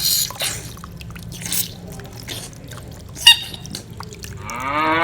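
Water splashing and dripping while plastic animal toys are washed by hand, with a sharp knock about three seconds in. Near the end a rising, pitched call starts.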